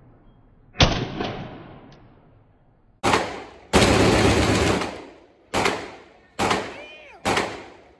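Several loud gunshots at an indoor shooting range, each followed by a fading echo: one about a second in, then a run of shots spaced roughly a second apart in the second half.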